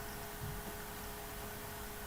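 Steady background hiss with a faint constant electrical hum, and a soft low thump about half a second in.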